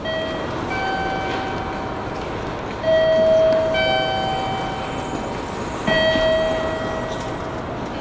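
A chime playing a series of held, ringing notes that overlap one another, the loudest entering about three seconds in and again about six seconds in, over steady background rumble.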